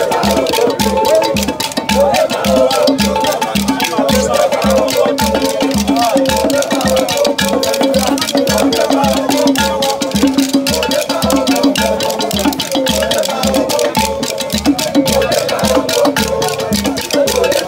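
Upbeat music with a steady drum beat, rattling shaker-like percussion and singing voices.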